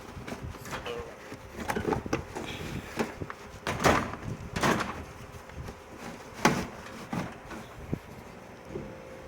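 Metal toolbox drawers being slid shut and opened, with a series of knocks and clunks from the drawers and the tools in them.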